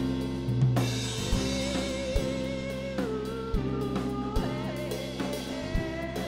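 Live band playing a song's introduction: a drum kit with regular hits and cymbal, sustained keyboard notes, and a held, wavering melody line laid over them.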